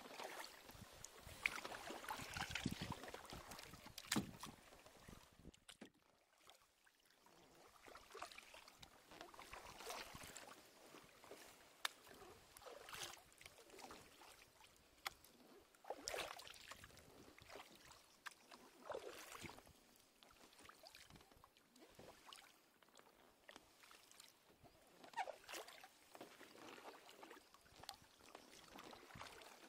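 Kayak paddle strokes: a wooden paddle's blades dipping and pulling through calm river water, giving faint brief splashes and drips every few seconds, a little louder in the first few seconds.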